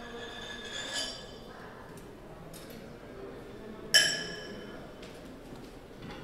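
A bowl struck with a small stick, ringing out with a bright, bell-like tone that fades: a light strike about a second in, then a much louder strike about four seconds in.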